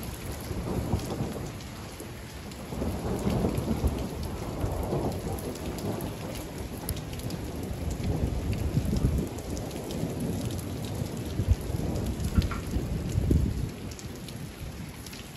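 Rain falling steadily with drops ticking on surfaces, under rolling thunder from a nearby lightning strike. The rumble swells about two and a half seconds in and again through the second half.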